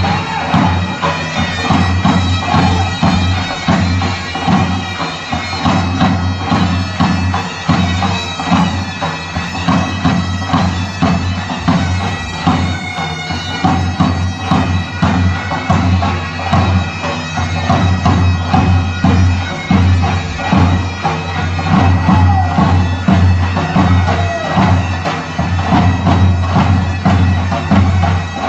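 Bulgarian gaida bagpipes playing a dance tune over a steady drone, with a large tapan drum beating the rhythm.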